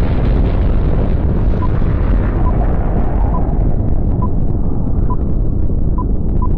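Sound-effect rumble of a nuclear explosion: a heavy, steady low rumble whose upper hiss slowly fades. Over it a short, high electronic beep sounds about once a second from a second or so in, coming faster near the end.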